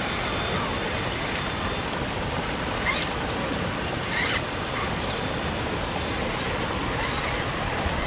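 Rushing creek water tumbling over rocks, a steady hiss, with a few brief high chirps around the middle.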